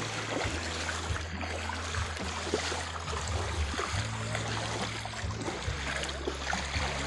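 Wading through a shallow creek: water sloshing and splashing around legs and feet, with a steady rush of moving water and a low hum cutting in and out underneath.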